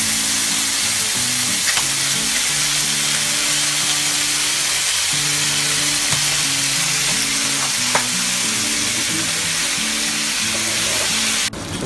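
Chicken legs frying in hot oil in a pan: a steady, loud sizzle. Soft background music plays underneath, and the sizzle cuts off suddenly near the end.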